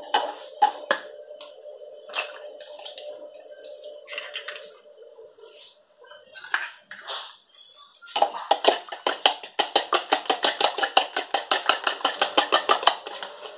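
Eggs being cracked into a bowl, a few scattered taps and clicks, then beaten by hand: from about eight seconds in, a fast, even run of clicks as the utensil strikes the bowl, about eight a second, for some five seconds. A steady hum sits under the first six seconds.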